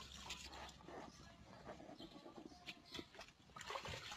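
Near silence, with a few faint scattered ticks and rustles.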